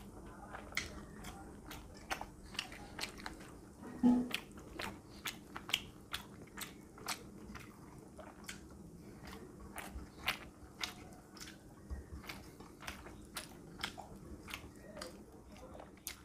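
Close-up chewing of rice and rohu fish curry eaten by hand: a steady run of wet mouth clicks and smacks, about two or three a second, with one louder burst about four seconds in.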